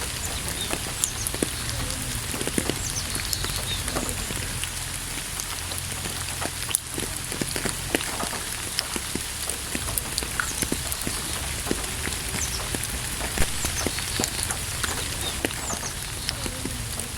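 Steady rain falling, with many individual drops striking close by. Birds chirp briefly now and then.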